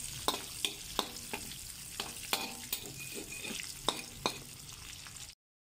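Sliced onions and garlic sizzling in hot oil in a frying pan as they are sautéed, a spatula stirring them and clicking against the pan about two or three times a second. The sound cuts off suddenly just before the end.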